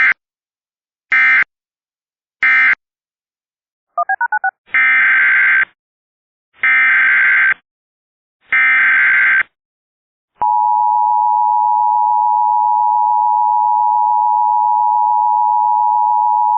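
Emergency Alert System tones. Three short data bursts close out the previous alert. Then come a quick run of four beeps and three longer, buzzy, roughly one-second SAME header bursts for the next alert. About ten seconds in, the steady two-tone EAS attention signal (853 and 960 Hz) begins and holds.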